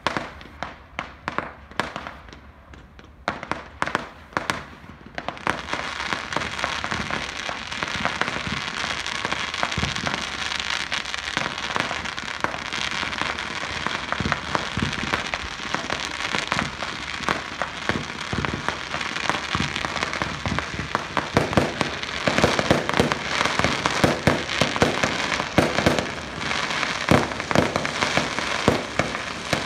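Fireworks display: separate bangs for the first few seconds, then, about five seconds in, a dense, continuous crackle full of pops, with the bangs coming thicker near the end.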